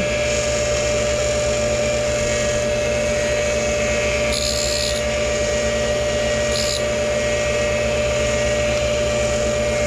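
Tool and cutter grinder running steadily, its motor and wheel giving a constant hum with one clear high tone. The dish wheel is lightly grinding the teeth of a milling cutter held on its arbor. Brief hissing contacts come about four seconds in and again, shorter, near seven seconds.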